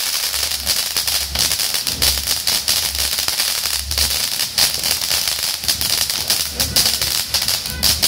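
Leegendary Fireworks ground fountain in full burn: a steady hiss of spraying sparks with rapid, dense crackling pops.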